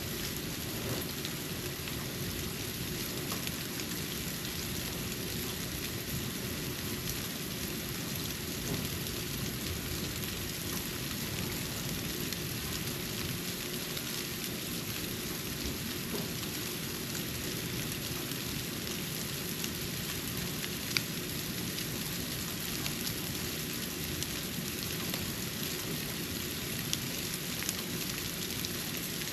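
Snowfall on a porch: a steady, even hiss of flakes landing, with a few faint sharp ticks, one plainer about two-thirds of the way through.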